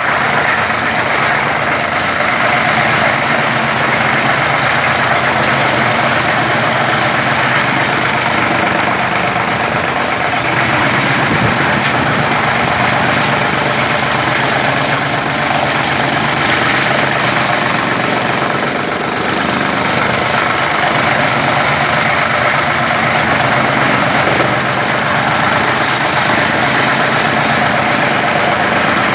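3 hp single-phase blower-type chaff cutter running steadily under load as plant stalks are fed in, chopped and blown out of its chute. The noise is loud and continuous, with no pauses.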